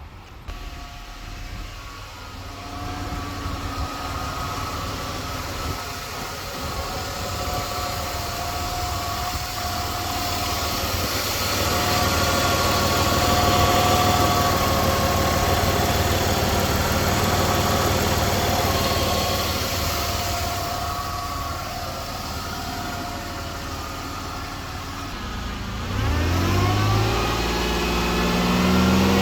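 2004 Buick 3.8-litre V6 engine running steadily with a low hum and a faint steady whine. Near the end it revs up, its pitch climbing.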